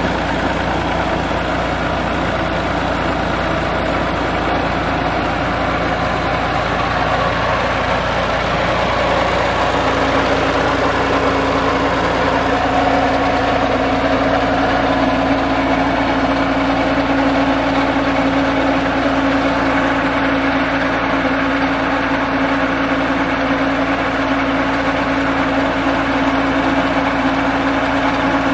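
New Holland Ghazi tractor's diesel engine running steadily under load, turning a belt-driven line shaft for two tubewell pumps, with water gushing from the delivery pipe. A steady hum comes in about a third of the way through and holds.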